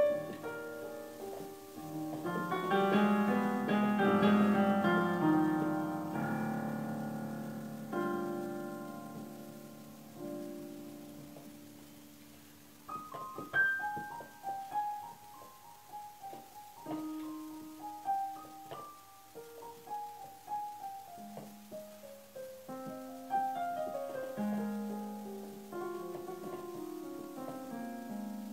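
Slow solo piano music. Chords ring out and fade over several seconds, then a new phrase of single notes and chords begins about halfway through.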